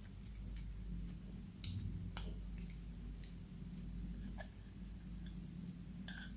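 Clear slime being pulled and squeezed out of a small plastic bottle, making scattered sticky clicks and crackles as it comes out.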